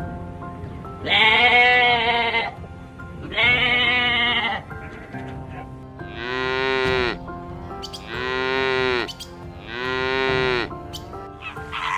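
Farm animal calling five times: long, drawn-out calls, the first two higher-pitched than the last three, over quiet background music.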